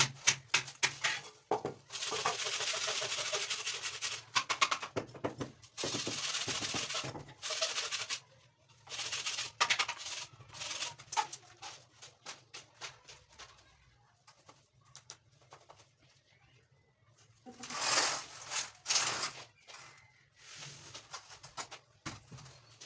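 Hand work on wood: stretches of rasping strokes, like sandpaper or a plane drawn along a wooden frame, broken up by knocks and clicks of wood being handled.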